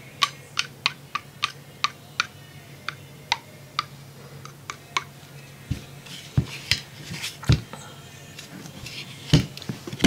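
Light metallic clicks of handgun parts being handled, several a second for the first few seconds, then a clatter of heavier knocks and clinks as pistol slides and frames are picked up and set down, the loudest knock near the end.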